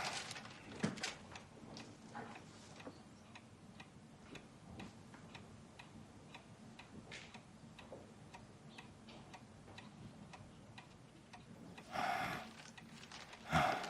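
A clock ticking steadily and faintly in a quiet room, with a louder brief sound about twelve seconds in.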